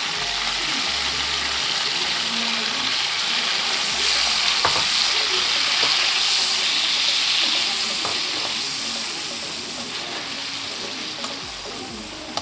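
Onion rings from the pork marinade sizzling in hot oil in a wok, stirred with metal tongs, with a couple of clinks of the tongs against the pan. The sizzle is loudest in the middle and eases off toward the end.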